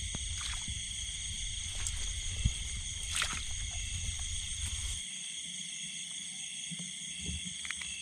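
Steady high-pitched chorus of night insects trilling in the rice paddy, with a low rumble underneath that stops about five seconds in.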